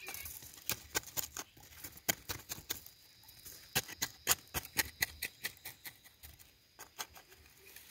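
Small metal-bladed hand tool chopping and scraping into dry, gravelly soil: a run of uneven, sharp scratchy strikes, two or three a second, as the earth around the plant's stem is loosened.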